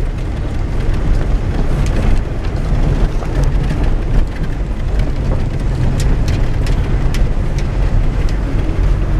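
Car driving along a dirt track, heard from inside the cabin with a window open: a steady low rumble of engine, tyres and wind, with scattered sharp ticks.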